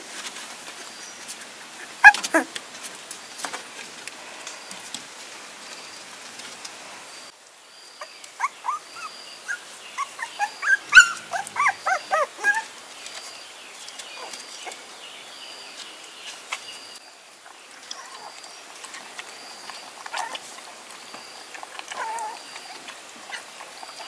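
Puppies whimpering and yelping: a sharp cry about two seconds in, then a run of short, high, wavering cries from about eight to thirteen seconds in, over a steady background hiss.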